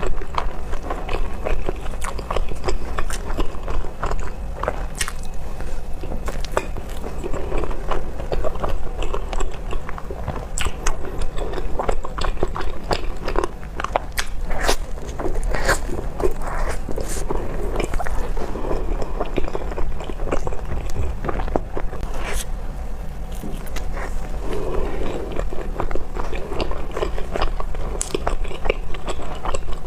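Close-miked eating of bread: repeated bites and moist chewing, with many quick, irregular crunchy clicks and crackles. A steady low hum runs underneath.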